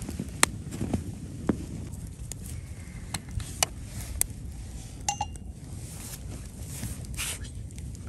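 Wood fire crackling with sharp pops, then a short metallic clink with a brief ring about five seconds in, as a spoon touches a stainless steel camping mug.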